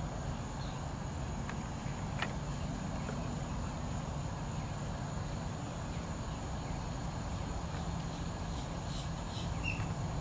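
Evening outdoor ambience: a steady, high-pitched drone of insects over a low, even rumble, with a few faint clicks.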